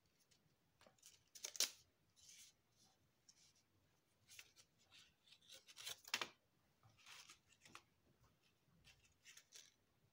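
Faint rustling and crinkling of origami paper being folded and creased by hand, in scattered short rustles, loudest about a second and a half in and again around six seconds in.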